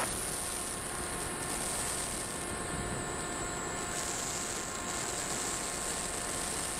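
Steady background hiss with a few faint, thin steady tones in it.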